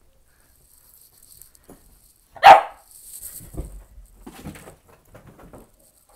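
A Boston terrier gives one sharp bark about two and a half seconds in, demanding the ball, followed by quieter scuffling sounds.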